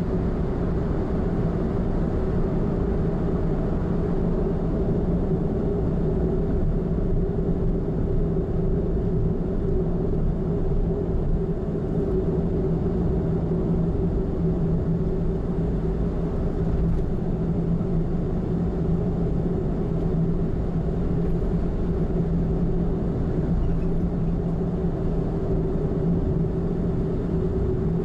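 A car cruising at steady expressway speed: continuous road and engine noise with a steady low hum that does not change.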